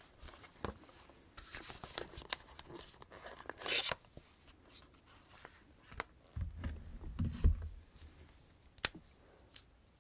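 Close-up handling of a cardboard lipstick kit box and its small lipstick tubes: scattered taps and rustles, a loud scraping rustle near four seconds, dull low thumps in the middle, and a sharp click near the end as a mini lipstick is taken out and uncapped.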